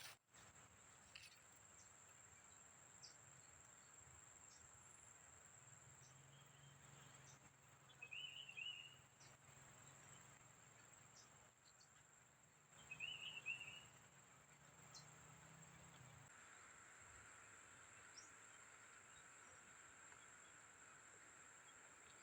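Faint, steady high-pitched drone of insects, with two short warbling bird calls, about eight and thirteen seconds in.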